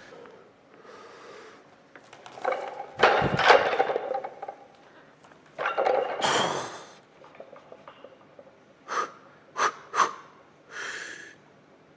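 Weightlifting clean of a 136 kg barbell: a loud clatter and thud of bar and bumper plates about three seconds in as it is pulled and caught on the shoulders. Then heavy forceful breaths and short sharp sniffs as the lifter holds the bar racked, readying the jerk.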